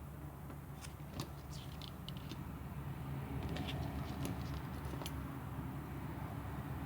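Scattered small light clicks and ticks from hands and tools working on a phone's frame while adhesive tape is fitted, over a steady low background hum.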